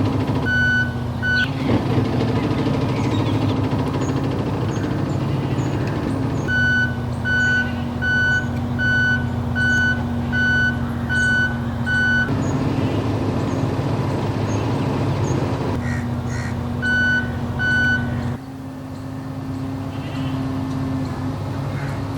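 Vehicle reversing alarm beeping at an even pace of a little over one beep a second, in three spells, the longest about eight beeps, over the steady hum of a running engine. About three-quarters of the way through, the beeping stops and the hum drops a little and changes tone.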